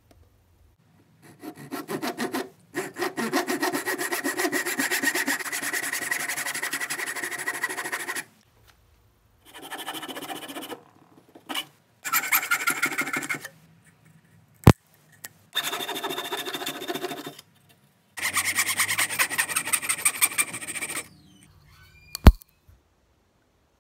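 Fine-toothed handsaw cutting a small piece of wood held in a vise: several bouts of quick back-and-forth strokes with short pauses between them. A sharp click comes about midway, and a sharp knock, the loudest sound, comes near the end.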